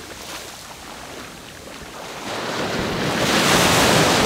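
Ocean surf washing around a wader, with a few small splashes early on; about two seconds in, a wave surges in with a rising rush that is loudest near the end.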